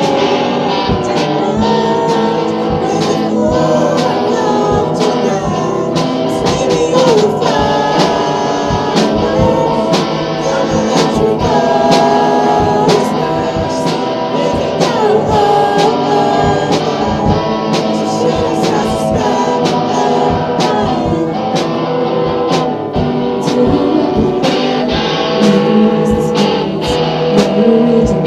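Amateur singing of a pop song with strummed guitar accompaniment, the strums coming at a steady beat under the voices.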